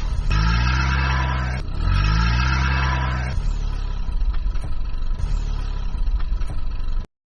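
Vehicle engine sound effect revving up twice, rising in pitch each time, then running on steadily before cutting off suddenly near the end.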